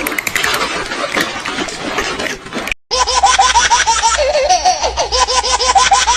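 A noisy clip cuts off abruptly a little before the middle. Then comes a baby laughing in quick, rhythmic bursts, about five a second.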